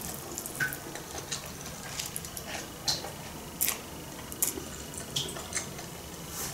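Noodles being slurped up off a fork and chewed: a scatter of short, wet smacks and clicks.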